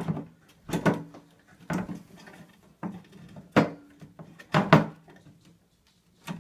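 Irregular knocks and clunks, about seven, as metal scooter headset parts are pushed and tapped down onto the fork. Each knock has a short low ring.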